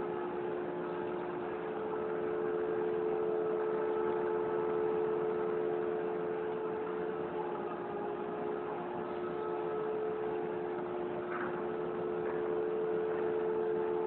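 CNC machine's motor running with a steady whine made of two close, unchanging tones.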